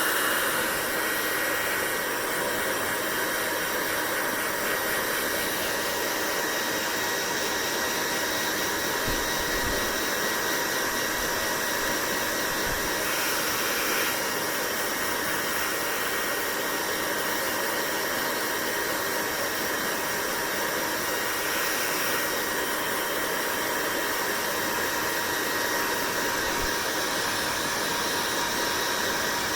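Hair dryer running steadily: a constant rush of blown air with a faint steady whine from its motor.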